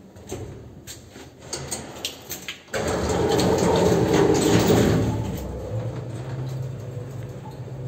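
Old passenger lift: a few light clicks and knocks, then about three seconds in the sliding doors rumble shut loudly, giving way to a steady low hum.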